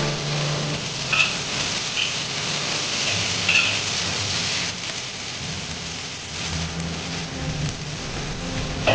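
Cured pork and houttuynia root sizzling in a hot wok as a metal ladle stirs and turns them, a steady hiss. A few ringing clinks of the ladle against the wok come in the first few seconds.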